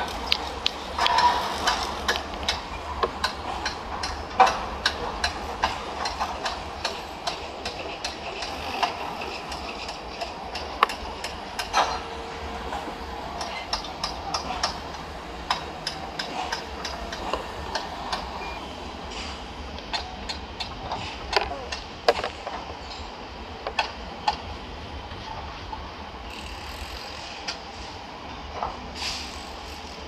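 Construction-site and traffic noise: a steady background rumble broken by frequent irregular knocks and clanks, with a short steady tone near the middle.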